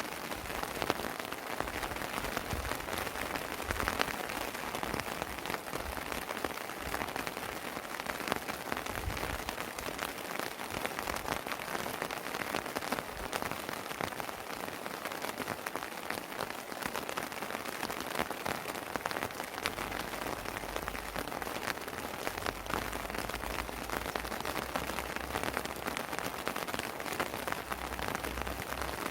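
Steady rain falling on a house terrace, with many small drop impacts pattering close by. A low rumble joins in for the last third.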